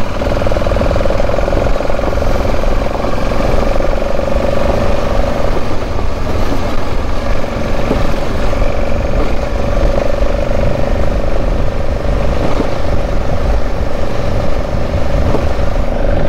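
Dual-sport motorcycle engine running at a steady pitch while riding a gravel dirt road, heard from a helmet-mounted microphone with wind noise and low rumble.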